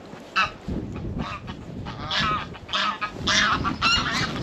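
Goose honking: a run of short, repeated honks, about two a second, growing louder through the second half.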